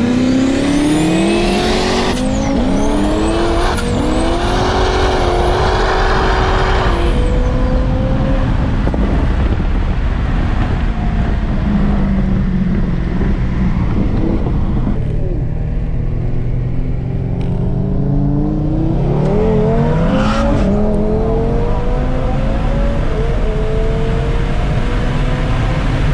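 Stage 2 Audi RS3's turbocharged five-cylinder, heard from inside the cabin at full throttle. Its pitch climbs with two quick upshifts in the first few seconds, then eases off; from a little past halfway it builds again in a long rising pull.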